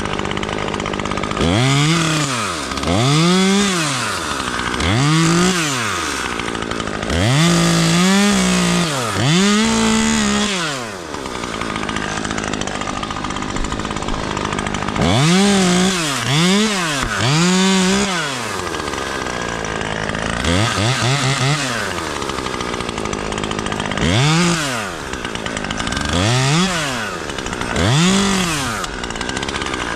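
Chainsaw cutting, revved in short bursts that rise and fall in pitch with each squeeze of the trigger. The bursts come in groups of two to five with short pauses between, and a steady running sound continues underneath.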